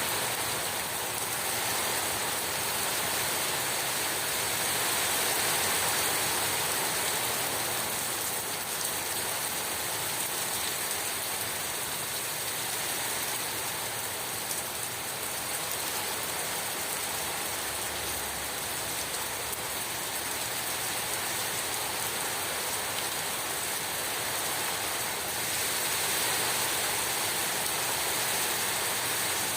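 Heavy rain pouring down in a steady, dense hiss, swelling and easing a little now and then.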